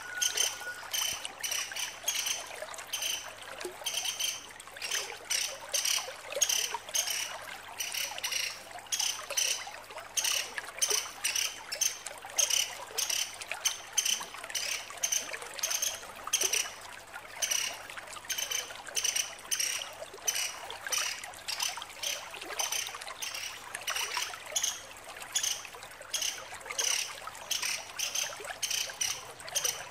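Female pelatuk sampit, a small pied woodpecker, calling in a high, rapid chatter of short notes, many a second, kept up without a break.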